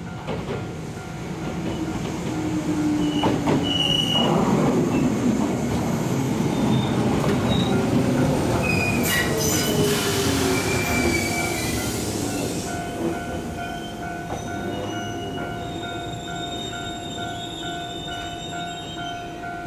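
Shizuoka Railway 1000-series two-car electric train passing close by and slowing into the station: a falling whine, rumbling wheels and high wheel squeals, loudest in the middle and easing off. A level crossing bell rings steadily throughout.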